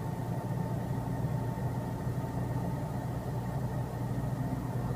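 A steady low machine hum, with a faint steady tone above it, unchanging throughout.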